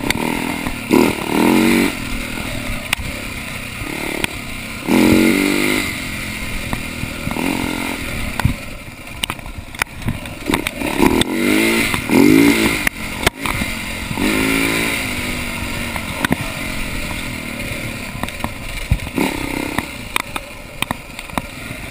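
Husaberg dirt bike engine running on a rough downhill trail, revving up and dropping back in short bursts of throttle every few seconds. Sharp knocks and clatter come from the bike jolting over bumps.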